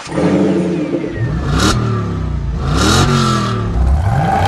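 Car engine revving, its pitch dropping and climbing again twice, with a whoosh about a second and a half in and a longer one about three seconds in.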